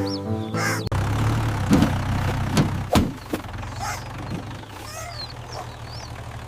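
Tractor engine running with a steady low rumble, with several knocks in the first few seconds. Faint high chirps sound above it, and music ends about a second in.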